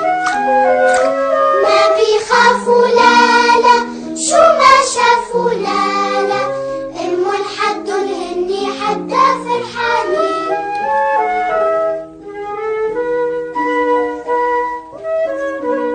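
Children's song music: a melody of short, steady pitched notes over a backing, busier in the first part and thinning to a cleaner tune after about eleven seconds.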